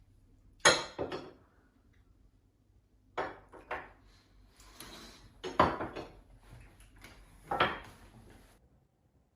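A series of sharp knocks and clatters, about seven in all, the loudest shortly after the start, in the middle and near the end, over a faint low hum.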